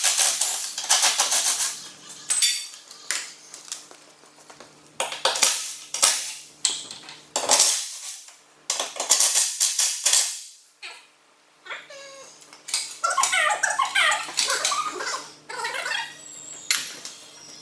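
Repeated bursts of an impact wrench undoing bolts on a 3.0 V6 TDI engine-and-gearbox unit, stopping and starting every second or two. Wavering high squeaks come in about twelve seconds in.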